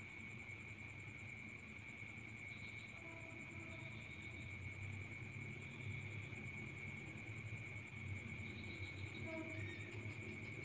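Faint crickets trilling steadily, with a low hum underneath and a few short, faint chirps about three seconds in and near the end.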